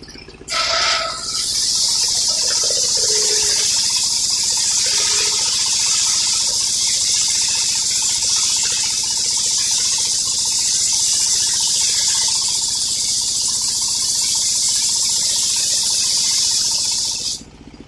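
Circular sawmill blade cutting lengthwise through a coconut-palm log: a loud, steady, high-pitched cutting hiss that starts about half a second in and stops abruptly just before the end. The mill's engine runs steadily underneath.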